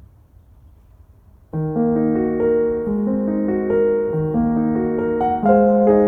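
Background piano music: after a brief quiet gap, a calm piano piece starts about a second and a half in, playing slow, sustained chords.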